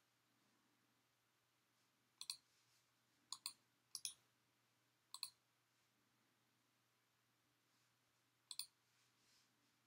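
Five computer mouse clicks, each a quick double tick of button press and release, spread irregularly with a long gap before the last.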